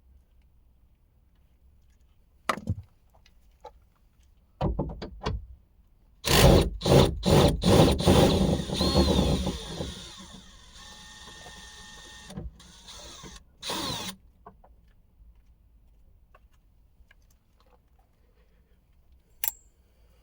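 Cordless DeWalt 20-volt drill with a socket adapter and a 10 mm socket, run in a string of short trigger bursts about six seconds in and once more briefly a few seconds later, backing out a 10 mm bolt. A few sharp clicks and knocks come before it.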